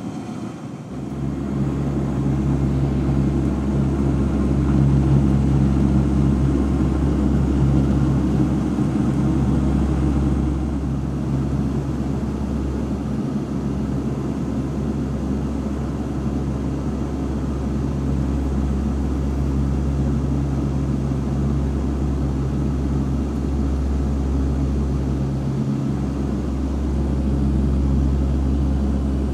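Propeller airliner's engines droning steadily, heard from inside the passenger cabin. Power comes up sharply about a second in, then holds at a loud, even level.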